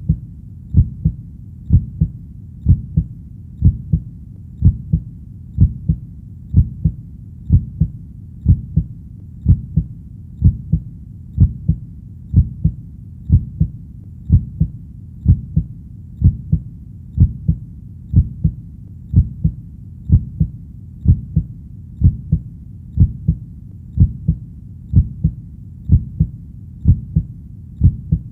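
Steady heartbeat sound: deep lub-dub double beats repeating evenly at about one a second, with a faint low hum between beats.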